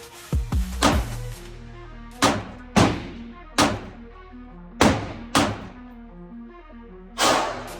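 A 9mm pistol fired about nine times at uneven spacing, each shot ringing out with a long echo. Music plays underneath.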